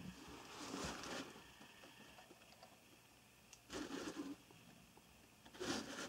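Three faint, brief rustling scrapes: hands handling the camera and knife, about half a second in, about four seconds in, and near the end, in a quiet small room.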